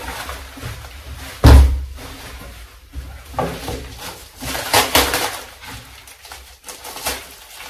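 Plastic packaging film rustling and crinkling as parts are unwrapped by hand, with one heavy thump about a second and a half in.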